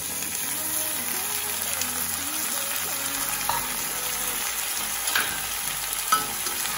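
Chopped tomatoes sizzling in hot oil with fried onions and ginger-garlic in a kadai: a steady frying hiss after the tomatoes are tipped in, with a few sharp pops of spattering oil.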